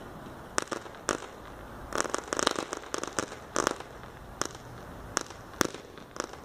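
Ground fountain firework crackling as it burns down, giving off irregular sharp pops, some in quick clusters and some single, over a faint hiss.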